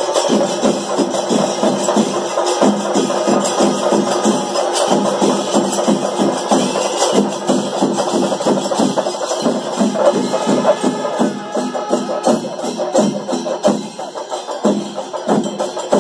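Kerala chenda melam ensemble playing: many chenda drums beaten in fast, dense strokes with ilathalam cymbals clashing along, loud and unbroken.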